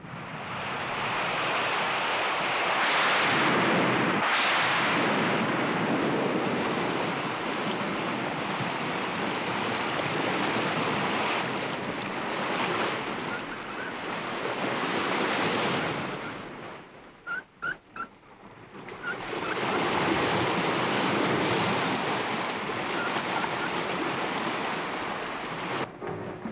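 Heavy storm-sea waves surging and crashing, a dense rushing of water. There are two sharper crashes a few seconds in, and a brief lull about two-thirds of the way through before the waves swell again.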